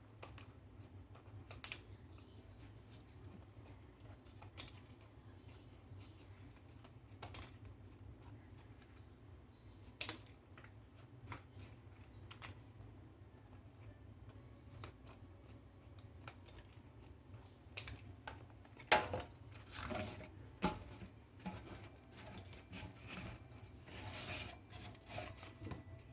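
Scissors snipping excess flaps off a heat-molded plastic disc: faint, scattered clicks and snips, growing louder and busier with handling of the stiff plastic in the last several seconds.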